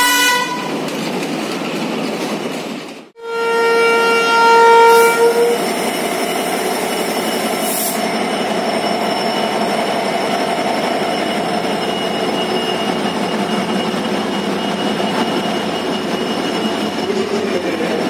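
A Sri Lanka Railways diesel locomotive's horn fades out just after the start. After a short break a second horn blast sounds for about two seconds, then there is the steady rumble and rattle of a locomotive and train rolling past close by.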